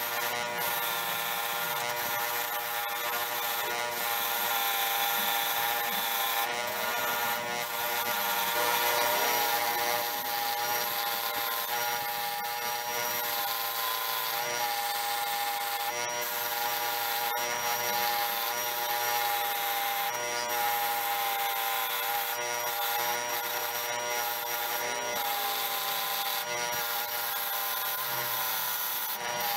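Electric motor spinning a wire wheel while metal letterpress quoin parts are held against it to scrub off rust: a steady motor hum under constant scratchy brushing, with occasional ticks.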